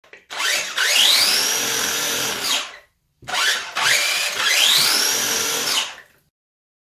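A small high-speed electric motor spins up with a rising whine, holds at speed, then winds down. The same run-up happens twice in a row.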